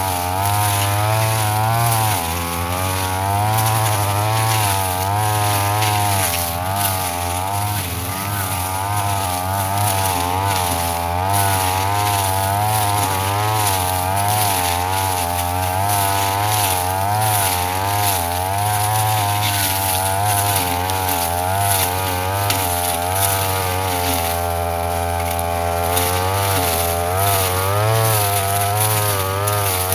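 Brush cutter engine running hard and continuously, its pitch rising and falling over and over as the cutting head swings through grass; for a couple of seconds near the end the pitch holds steadier.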